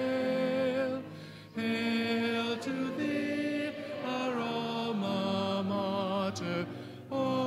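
Voices singing the university alma mater, a slow hymn, in long held notes that step in pitch, with a breath break about a second in and another near the end.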